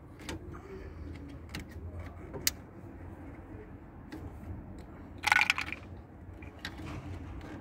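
Light clicks and rattles of fuel-line connectors being handled and fitted on a Delphi diesel fuel filter housing, with one louder rattling burst about five seconds in.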